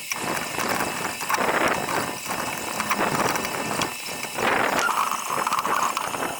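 Handling noise from cleaning a PC case: irregular knocks, clicks and rubbing, with a brighter, higher rubbing sound in the second half.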